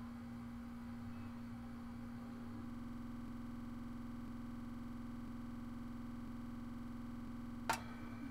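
A steady low hum with a single sharp click near the end.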